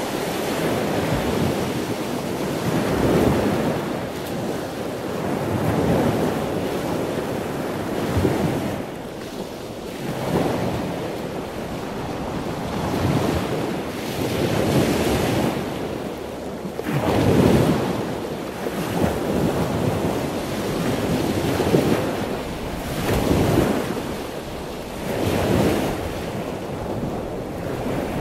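Ocean surf: waves breaking and washing in a continuous roar of noise that swells and ebbs every few seconds, with some wind noise on the microphone.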